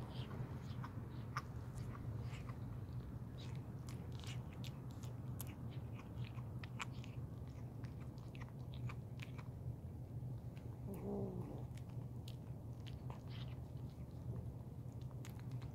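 Kittens chewing crunchy food scraps off the pavement: many short, irregular crunching clicks over a steady low hum, with one brief low cat cry about eleven seconds in.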